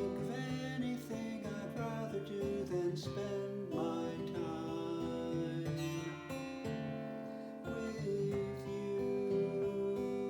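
Acoustic guitar music: strummed chords with sustained notes, the chords changing gently.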